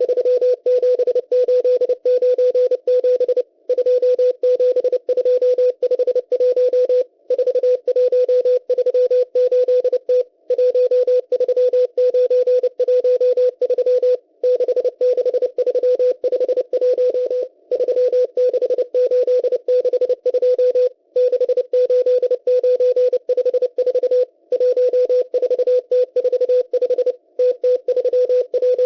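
Morse code from the M12 numbers station received on shortwave: a single tone of about 500 Hz keyed rapidly in dots and dashes over faint radio hiss, with a short break every three to four seconds between groups of numbers.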